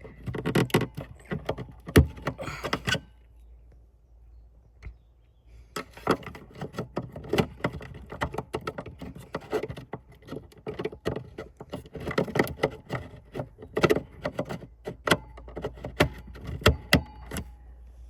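Irregular clicks, knocks and rattles of hands working bulb sockets in a car's rear light housing, with a lull of about three seconds early in the run.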